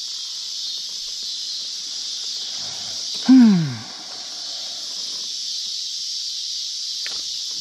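Steady high-pitched chorus of night crickets. About three seconds in, one loud squeal-like call slides down in pitch over about half a second.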